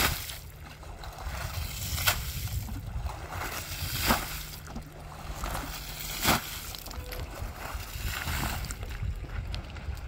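Carpets being washed by hand in a river: water sloshing, with a sharp splash about every two seconds for four strokes, then smaller ones, over a steady low rumble.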